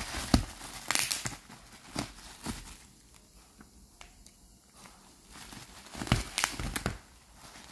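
Plastic bubble wrap crinkling and crackling in scattered bursts as a dog pushes its muzzle into it, busiest in the first two seconds and again near the end, with a quieter spell in the middle.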